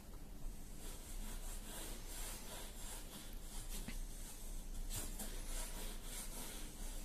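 Faint scratchy rustling and crunching of snow as a cocker spaniel digs and noses into it, with a low steady rumble underneath.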